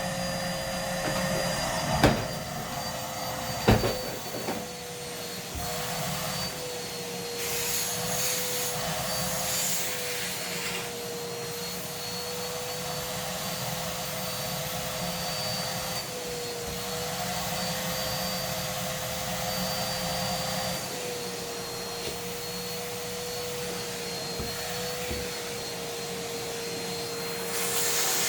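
Numatic Hetty cylinder vacuum cleaner running with a steady motor whine that wavers slightly in pitch as the nozzle is worked against socks and feet. Two sharp knocks come about two and four seconds in.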